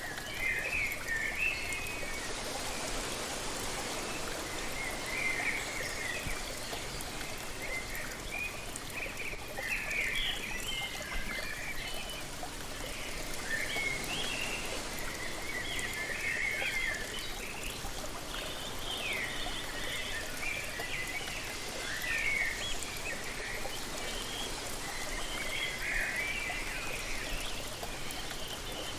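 Waterfall rushing steadily, with birds chirping and singing in short phrases every second or two over it.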